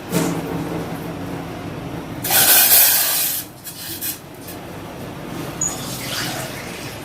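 Water poured from a cup into a cooking pot, the main pour about two seconds in and lasting about a second, with lighter pouring sounds around it.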